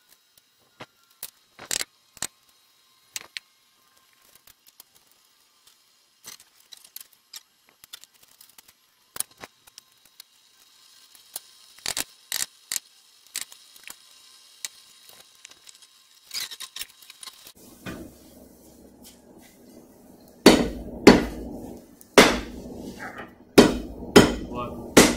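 Scattered metallic clinks and knocks, then from about twenty seconds in, heavy hand-hammer blows on the hot sword blade at the anvil, about two a second with short pauses. A low steady rumble comes in a few seconds before the hammering starts.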